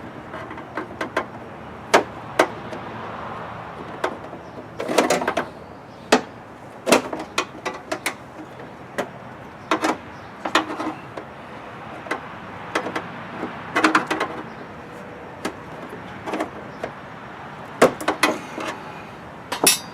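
Irregular clicks, knocks and short scrapes of the Jeep Wrangler JK's plastic fuel filler housing and gas cap bracket being worked loose by hand, with a brief rattling scrape about five seconds in and again around fourteen seconds.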